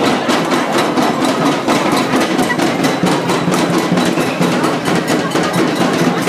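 Busy street crowd with music playing and a fast, steady beat of sharp percussive hits running through it.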